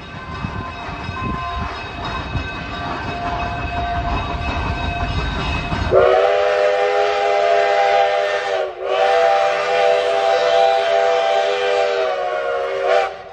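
Durango & Silverton No. 481, a K-36 steam locomotive: the low rumble of the running train for about six seconds, then the chime whistle sounds a long chord of several tones. Just before the ninth second the whistle dips briefly and sags in pitch, then is held again and cuts off near the end.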